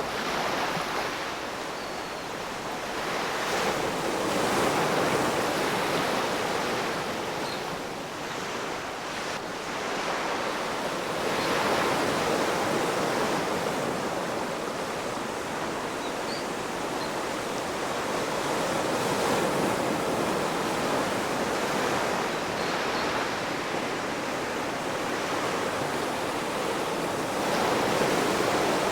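Ocean waves breaking and washing on the shore, a continuous rushing wash that swells and eases every few seconds.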